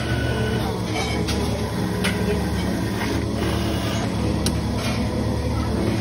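Self-serve coffee machine running as it dispenses frothed milk into a cup: a steady pump-and-motor hum with a few faint clicks.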